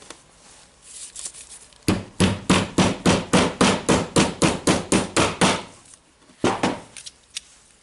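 A hammer striking a long socket to drive a ball bearing onto the drill's anvil shaft by its inner ring: a quick run of about fifteen sharp taps, roughly four a second, then one more tap after a short pause.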